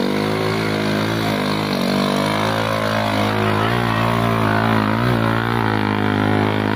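Engine of a motorcycle-based three-wheeled cargo carrier running under load through mud and water, its note rising and falling as it is throttled.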